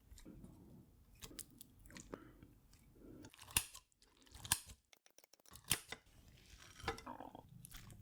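Close-miked chewing: a mouth working through food with irregular wet clicks and small crunches, pausing briefly about halfway.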